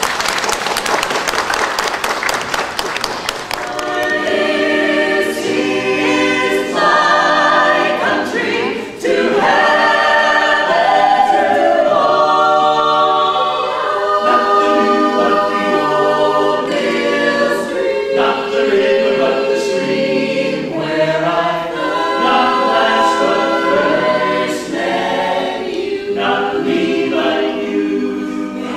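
Audience clapping for the first few seconds, then a small mixed-voice choir singing unaccompanied in close harmony.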